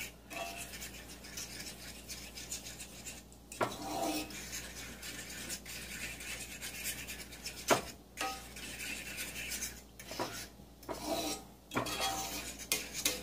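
A metal utensil stirring and scraping a thick roux-based white sauce around a cast iron skillet, with a few sharp clinks against the pan, the loudest about two-thirds of the way through.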